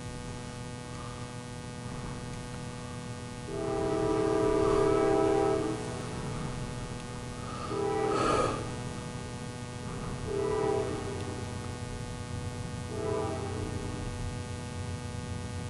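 Air horn of an approaching CSX freight locomotive sounding a chord of several notes: one long blast about three and a half seconds in, then three shorter blasts, over a steady low hum.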